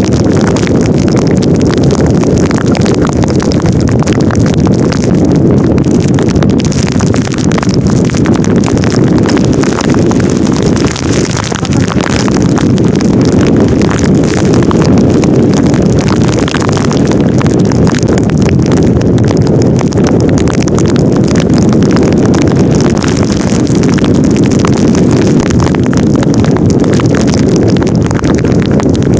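Wind buffeting the microphone of a vehicle moving along a rain-soaked road in heavy storm rain, a loud, steady rush with a brief dip about eleven seconds in.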